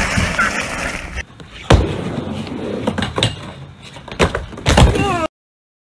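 Skateboard on a wooden mini ramp: several sharp knocks of the board and wheels striking the ramp, spread over a few seconds, the loudest near the end.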